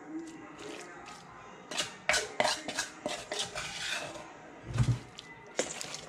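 Metal cooking pot clattering as raw meat and spice paste are mixed in it with a wooden spoon, with a cluster of sharp knocks and scrapes about two seconds in and another near the end.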